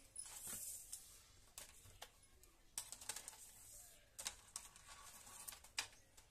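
Faint handling sounds of cloth and a tailor's measuring tape: soft rustles and small irregular clicks and taps, a few every second, with no machine running.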